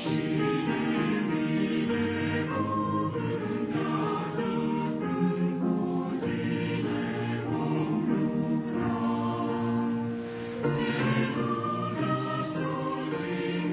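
Mixed choir of women's and men's voices singing in parts: held chords with a brief breath between phrases about ten and a half seconds in.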